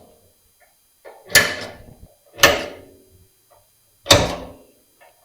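Automatic center punch snapping against metal three times, about a second apart, each sharp crack followed by a brief metallic ring, as hole positions are marked for drilling.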